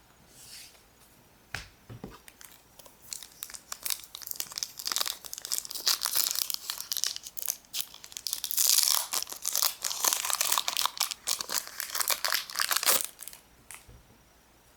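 Foil Pokémon booster pack wrapper crinkling as it is handled and torn open: a dense run of crackling from about three seconds in that stops shortly before the end.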